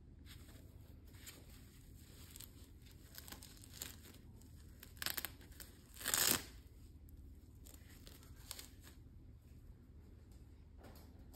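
Hook-and-loop (Velcro) strap on a padded boxing head guard being pulled apart: a short rasping tear about six seconds in, with a shorter one just before it. Soft handling rustles come and go around them.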